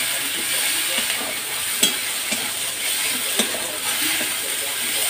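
Spice masala frying in hot oil in a steel kadhai, sizzling steadily as a steel spatula stirs it, with two sharp clicks of the spatula on the pan about two and three and a half seconds in. This is the frying (bhuna) stage of a curry masala, before water goes in.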